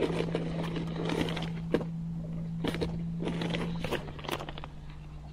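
A steady low hum that drops slightly in pitch and gets quieter about four seconds in, under scattered clicks and knocks of gear being handled in a small fishing boat.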